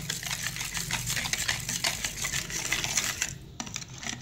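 Wire whisk beating a thick yogurt-and-cream mixture in a plastic bowl: quick rhythmic clicking and tapping of the wires against the bowl, easing off briefly about three seconds in.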